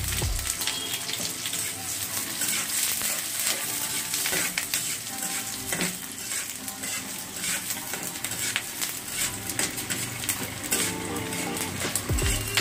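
Chopped onion, dried red chillies and fenugreek seeds frying in hot oil in a karahi, sizzling and crackling, stirred with a spatula now and then. This is the baghar (tempering) for nihari, the onions cooking toward brown.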